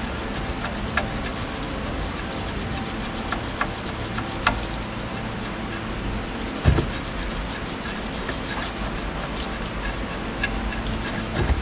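Hand brush scrubbing back and forth on the suspension strut where the anti-roll bar link mounts, cleaning off dirt, with one knock partway through.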